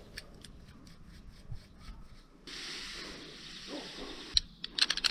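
Faint rubbing of rope and climbing gear being handled, with a few light clicks of metal hardware.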